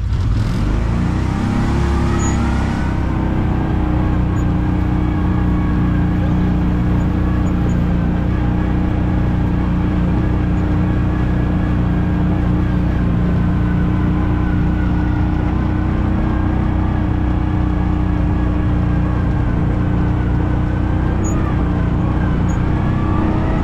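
Kawasaki Mule 3010 utility vehicle driving along, its carbureted V-twin engine rising in pitch as it gets under way during the first couple of seconds, then running steadily at an even speed.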